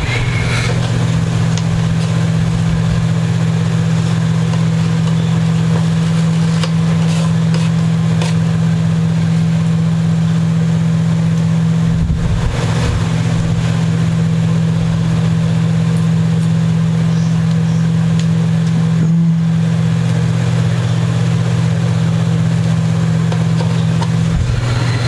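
Loud, steady low hum throughout, with a few faint clicks and rustles of hands at work on top.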